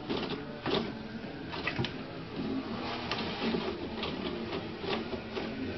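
Toilet paper rustling and tearing as a cat paws and bites it off the roll, in irregular short scrapes and crackles.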